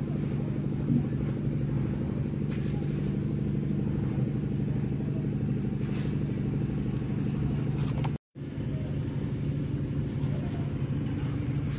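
A steady low engine drone that cuts out for an instant about eight seconds in.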